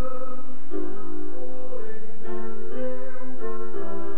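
Music from a vocal group's live song with instrumental accompaniment: sustained chords that move to a new harmony about every half second.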